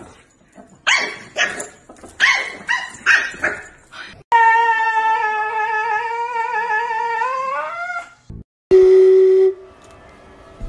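A dog barking in short, quick barks, six or so in a row; then a Siberian husky howling one long held note for nearly four seconds, its pitch rising at the end, followed a moment later by a short steady tone.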